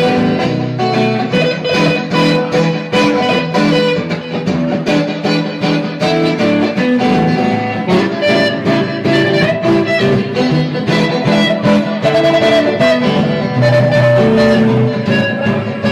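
Live band playing, with guitar to the fore.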